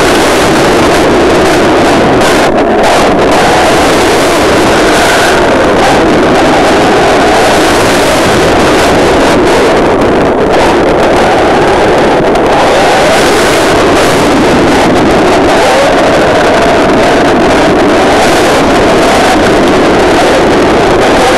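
Loud, steady rushing noise picked up by a camera riding on a 6S electric RC buggy as it drives on a wet road: wind on the microphone mixed with the car's driving noise, with no clear motor tone.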